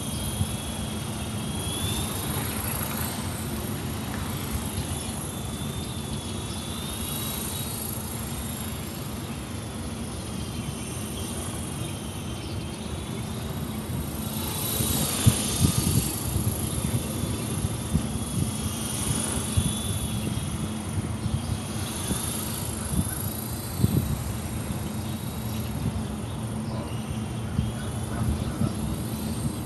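Whine of a Honeybee FP fixed-pitch electric RC helicopter's motor and rotors, its pitch wavering up and down as the throttle changes rotor speed. A low rumble sits underneath.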